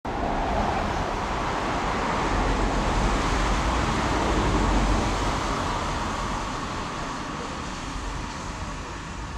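Road traffic noise on a wet street: a low rumble with tyre hiss that swells about halfway through and then slowly fades.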